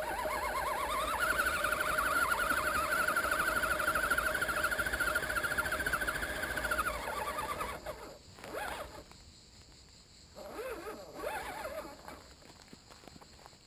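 Electric motor and gear drivetrain of an Axial SCX10 RC scale crawler whining as it drives, with a fast wobble in pitch. The whine rises in pitch about a second in, then winds down and stops about two thirds of the way through, leaving only a few faint scattered noises.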